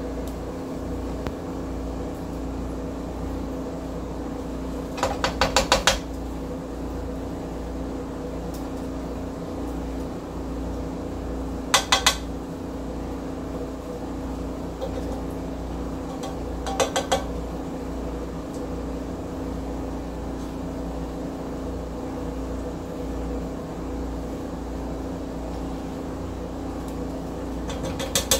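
A spoon tapping and clinking against the rim of a cooking pot and a plate in short runs of quick clinks: about five around five seconds in, two near twelve seconds, a few near seventeen seconds and more near the end. The clinks come as masala is spooned onto the rice layers of a biryani, over a steady low kitchen hum.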